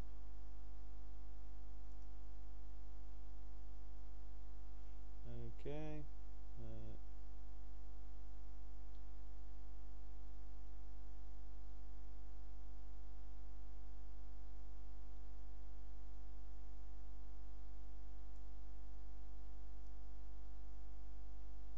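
Steady electrical mains hum, a strong low drone with a ladder of fainter higher hum tones above it, picked up by the recording chain. It carries on unchanged under everything.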